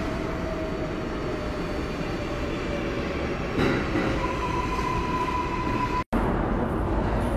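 Subway car running, heard from inside the car: a steady rumble of wheels and running gear. A steady high whine comes in past the middle, and the sound drops out for an instant about six seconds in.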